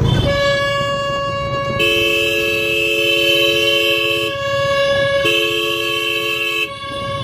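Vehicle horns: one horn held on one steady note for about seven seconds, with a second, lower-pitched horn sounding twice over it.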